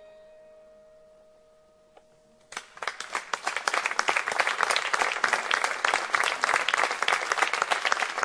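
The last held note of the music fades out into quiet. About two and a half seconds in, an audience starts applauding, dense clapping that carries on steadily.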